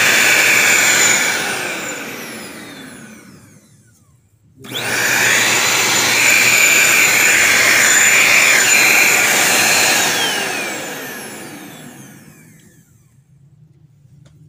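Handheld vacuum cleaner motor running with a fairly loud, high whine. It winds down about a second in, starts again abruptly about four and a half seconds in, and winds down again from about ten seconds in.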